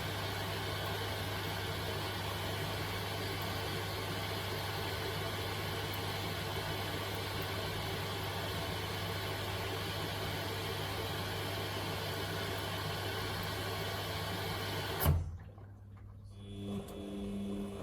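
Samsung washing machine filling for its Baby 60°C cycle: a steady low hum with a rush of water over it. About fifteen seconds in, it stops with a sharp click, and after a short pause a quieter, pitched hum starts.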